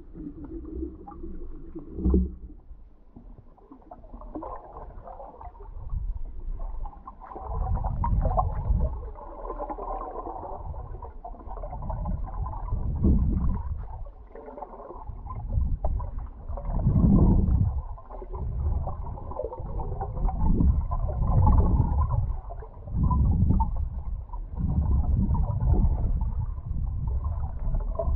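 Water rushing and gurgling around a GoPro's waterproof housing as it is towed just under the sea surface, heard muffled in low, uneven surges that swell every second or two. It is quieter for the first few seconds, then louder.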